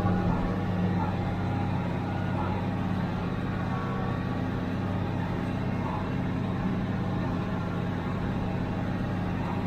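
International Harvester 886 tractor's diesel engine running steadily under load while pulling a John Deere 348 small square baler through hay, heard from inside the tractor's cab.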